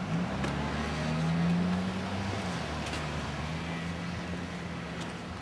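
A motor vehicle's engine running steadily in a parking lot. Its low hum rises right at the start, dips slightly about halfway through, then holds steady.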